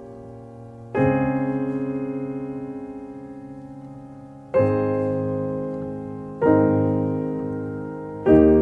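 Slow background piano music: sustained chords struck one at a time, about every two to three and a half seconds, each left to ring and slowly fade.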